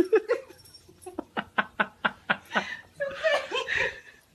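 A person laughing in a quick run of about eight short ha's, roughly five a second, followed by indistinct talking.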